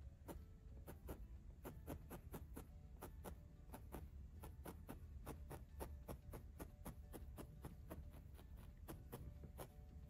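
Felting needle stabbing again and again through wool locks into the felted wool nest, a quick run of faint clicks about four a second, tacking curly locks onto the rim. A low hum lies underneath.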